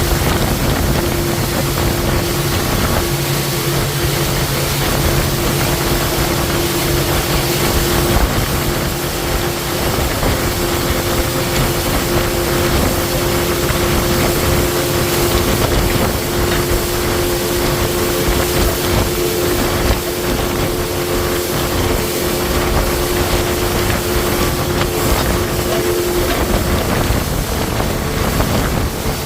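A motorboat's engine running steadily under way, with a constant hum, and wind rushing over the microphone.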